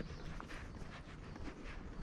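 Footsteps of a person walking, heard as a quick, irregular run of small clicks and scuffs over a steady low rumble.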